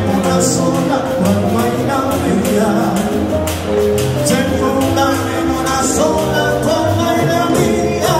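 Latin dance orchestra playing a salsa-style number, with a voice singing over bass, melody lines and a steady percussion beat.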